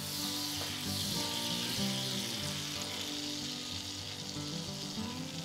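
Butter sizzling in a hot frying pan as it starts to melt, a steady hiss. Quiet background music with held notes plays underneath.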